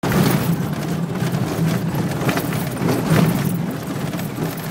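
Vehicle driving on a dirt road, heard from inside the cabin: a steady engine drone with road noise.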